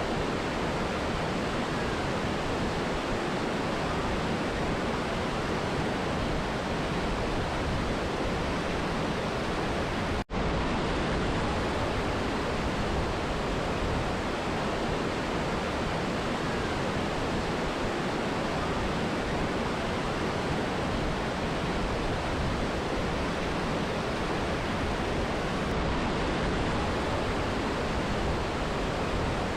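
A mountain river and waterfall rushing in a steady, even roar of water. The sound cuts out for an instant about ten seconds in.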